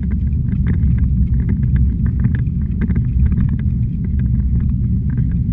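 Steady low rumble of a jogging stroller rolling along a paved path, picked up through a camera mounted on the stroller, with faint light ticks over it.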